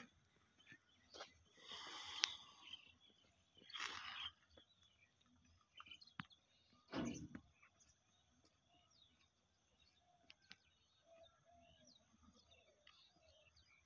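Near silence: quiet outdoor ambience with a few faint scuffs in the first half and scattered short, faint chirps later on.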